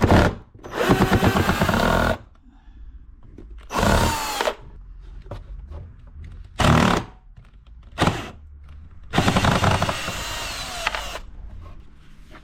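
Power drill running in several short bursts of one to two seconds each, with pauses between, as when driving or removing screws.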